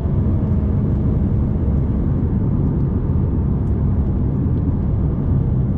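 Fiat Toro Volcano's 2.0 turbodiesel four-cylinder and tyres cruising steadily on the highway: an even low engine drone mixed with road noise.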